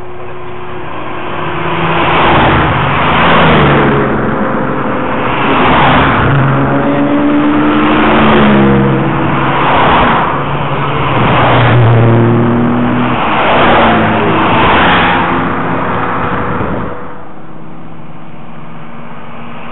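Historic rally cars passing at speed one after another, several in quick succession, each engine swelling up loud and then fading as it goes by, with the engine pitch sliding during each pass. The run of passes stops about three seconds before the end.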